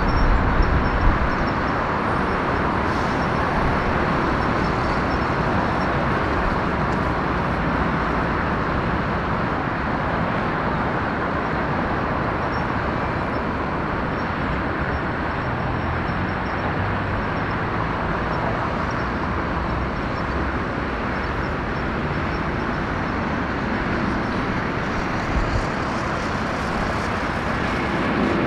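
Boeing 777-300ER's GE90 turbofan engines running as a steady jet rumble while the airliner rolls out along the runway after landing.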